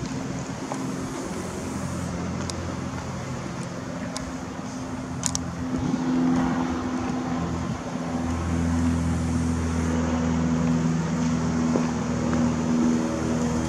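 Parked police bus's engine running with a steady low hum, growing louder about eight seconds in as it gets closer.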